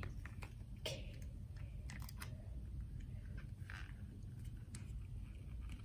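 Faint handling noises as a clear plastic phone case is worked onto an iPhone 13: a few light clicks and taps over a low room hum.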